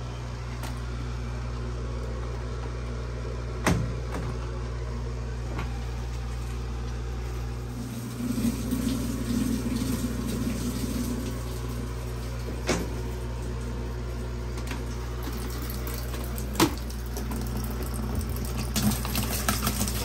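Top-load washing machine being set and started: a steady low hum with a few sharp clicks as its control-panel buttons are pressed, and a few seconds of low whirring midway. Near the end, liquid starts pouring and splashing into the drum.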